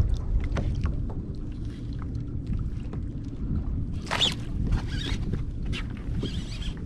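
Wind on the microphone and water slapping a kayak hull on open sea make a steady low rumble. A few short clicks and scratchy noises come through it, the loudest about four seconds in.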